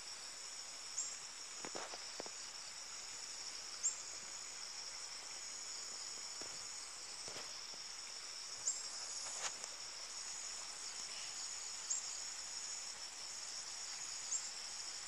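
Steady high-pitched insect chorus, with a few short chirps over it at intervals of a few seconds.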